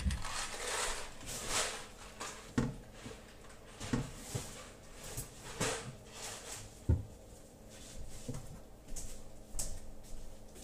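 Irregular knocks and rustling as things are handled and set down in a kitchen, a knock every second or so.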